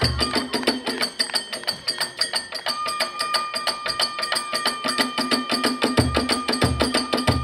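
Kagura hayashi ensemble playing: fast, dense clashing of hand cymbals with drum strokes. A flute enters just under three seconds in and holds one long high note, and heavy low drum beats sound near the end.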